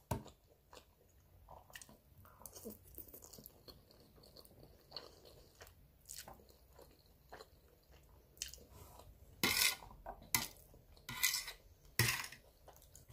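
Close mouth sounds of eating spaghetti: chewing and sucking up noodles, with scattered small clicks and a few louder noisy bursts in the last few seconds.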